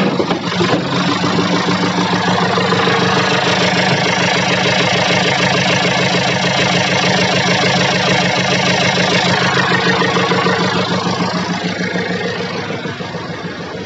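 JCB 3DX backhoe loader's diesel engine running close by at a steady speed, easing off and getting quieter over the last few seconds.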